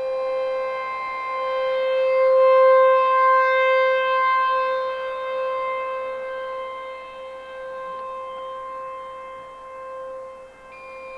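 American Signal T-128 outdoor warning siren sounding a steady single tone on a test. The pitch holds while the loudness swells, peaks a few seconds in, then slowly falls away.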